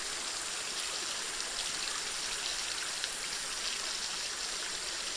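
Small stream's water running through a bamboo-slat fish trap and spilling down beside it: a steady rush of trickling, splashing water.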